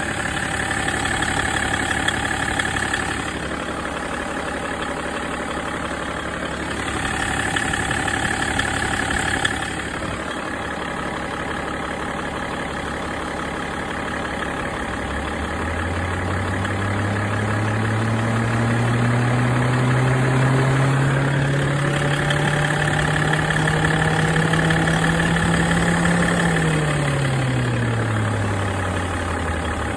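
BMW E53 X5 engine idling. Twice in the first ten seconds a higher whine comes in for a few seconds and stops. About halfway through, a low hum climbs slowly in pitch for about ten seconds, then drops back quickly near the end.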